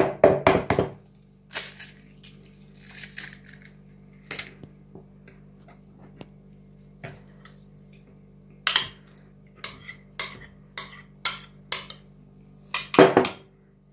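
Eggs cracked on a ceramic mixing bowl in a quick cluster of knocks at the start. Later a metal spoon clinks and scrapes against a ceramic plate while yogurt is spooned out, about two sharp clinks a second. A faint steady hum runs underneath.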